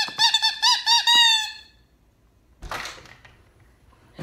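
Squeakers inside a Kong Crunch dog toy squeezed by hand: a quick run of high squeaks, about six a second, for the first second and a half. A short rustle follows about a second later.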